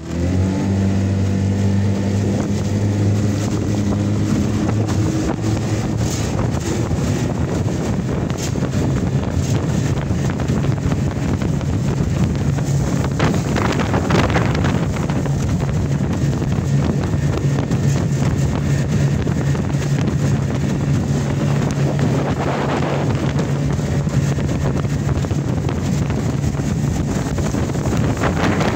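A 1991 Johnson 20 hp two-stroke tiller outboard runs at full throttle on a 14-foot aluminum boat, a steady engine drone under a rush of wind and water. The engine note changes a few seconds in and then holds steady. The rushing noise swells twice, around the middle and again about three quarters of the way through.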